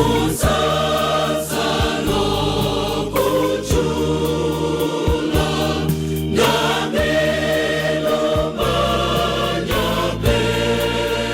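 Choir singing gospel music over a band accompaniment with a steady bass and beat.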